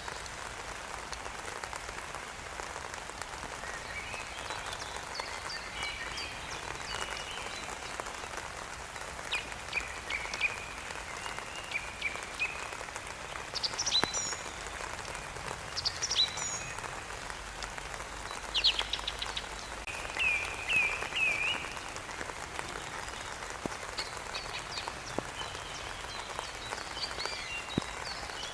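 Steady rain falling, with birds chirping and singing on and off over it: short rising and falling calls, and a quick run of repeated chirps about two-thirds of the way through.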